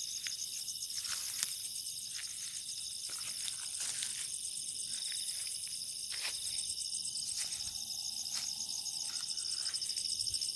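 Night chorus of crickets and other insects: a steady, high, rapidly pulsing trill, with a few faint clicks and rustles now and then.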